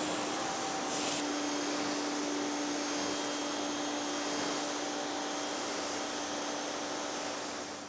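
ProFlow PM2000 electric pressure washer running steadily, its motor humming under the hiss of the water jet spraying onto a car's paint to rinse off soap. The motor cuts out near the end.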